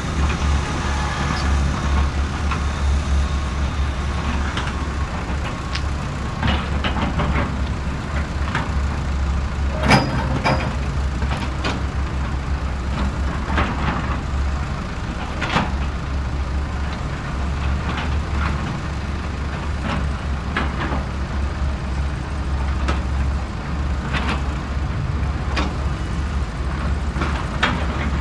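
Lego Technic excavators being played with: scattered plastic clicks and knocks over a steady low rumble, with one louder knock about ten seconds in.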